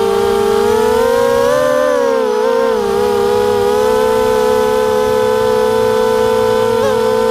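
Racing quadcopter's four brushless motors and propellers whining at a fairly steady pitch, dipping and rising slightly as the throttle shifts, with a short blip in pitch near the end.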